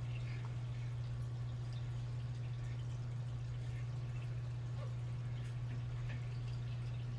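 Steady low hum, like an appliance or mains hum, with a few faint small ticks scattered through it.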